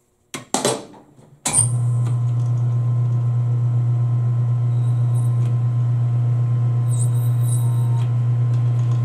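Metal lathe started up: a couple of short knocks, then about a second and a half in the motor and spindle come on and run at steady speed with a loud, even low hum. A brief high scraping shows around seven seconds in.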